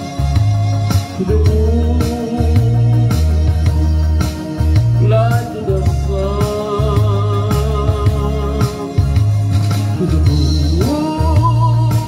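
A man singing a slow soul ballad into a microphone, drawing out long notes with vibrato, over a backing track with a steady bass and drum beat.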